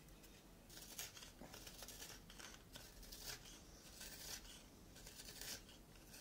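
Narrow knife blade scraping wood inside the bore of a small hollow wooden pipe. It makes a series of short, faint scraping strokes, roughly one or two a second, starting just under a second in.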